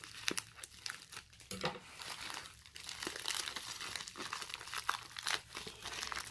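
Plastic courier mailer bag being cut open with scissors and torn apart by hand, the plastic crinkling and tearing in irregular crackles.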